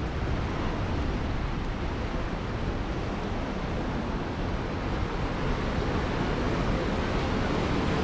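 Steady ocean surf breaking on a rocky shore, mixed with wind buffeting the microphone in low rumbles.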